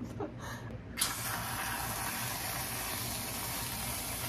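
Aerosol can of whipped cream spraying in one long, steady hiss. It starts suddenly about a second in and runs until just before the end.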